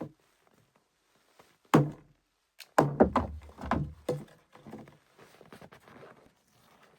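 Heavy thuds and knocks of solid objects being handled: one sharp knock a little under two seconds in, then a quick run of four or five deeper thumps, then lighter clatter.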